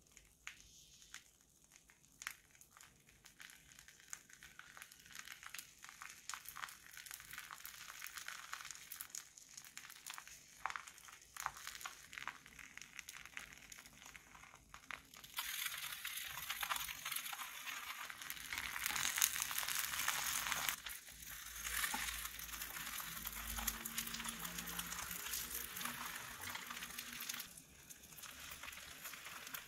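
Egg omelette sizzling in butter in a nonstick frying pan, with soft crackles from slices of turkey ham being laid on it and grated cheese being sprinkled over. About halfway through the sizzling turns into a louder steady hiss, and it eases off near the end.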